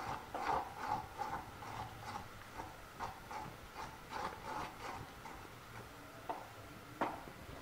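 Steel spoon scraping and knocking against an aluminium kadhai as wheat flour is stirred into hot ghee to roast it, a quick run of scrapes and clinks, two or three a second, slowing after about five seconds, with two sharper clicks near the end.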